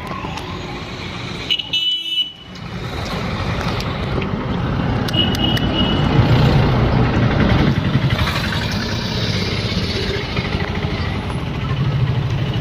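Busy street traffic: engines running steadily, with a short horn toot about two seconds in and another around five seconds in, and the rumble growing louder in the middle as a vehicle passes close.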